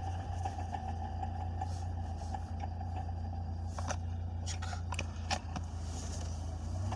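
UAZ Patriot engine running steadily, with a few short, sharp knocks from the drivetrain between about four and five and a half seconds in. This is the knock that comes when the clutch is pressed, which the owner places around the transfer case.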